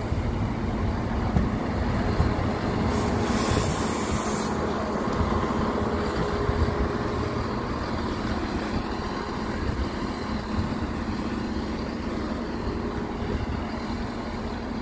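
Class 170 Turbostar diesel multiple unit standing with its underfloor diesel engines idling in a steady low drone, with a short hiss of air about three seconds in.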